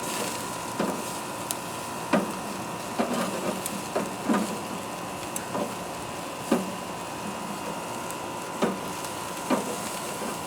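Steaks searing over a hot mesquite wood fire: a steady sizzle with irregular sharp pops and crackles, roughly one a second.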